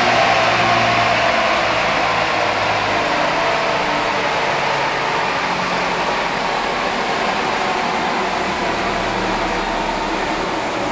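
Twin-turbo Dodge Challenger R/T's Hemi V8 running on a chassis dynamometer as the run winds down after a pull. A steady, loud rush of noise is heard, with a high thin whine that slowly falls in pitch.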